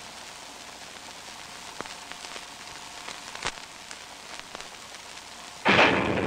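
Crackle and hiss of an early sound-film soundtrack with scattered clicks, then near the end a sudden loud cartoon crash as the wooden fence and the cat come down, fading away quickly.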